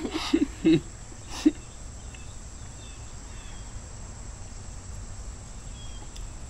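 A steady, high-pitched drone of insects such as crickets, with a few faint short chirps over it. A brief voice sounds in the first second.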